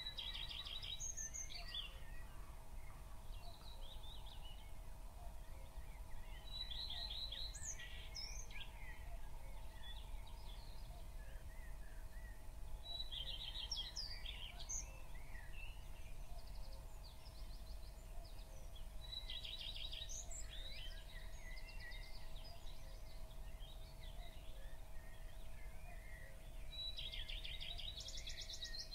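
A bird singing the same short, fast trilling phrase about every six or seven seconds, over a faint steady hum.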